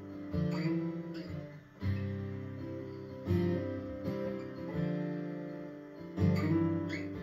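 Twelve-string acoustic guitar strumming chords, five struck about a second and a half apart, each left to ring.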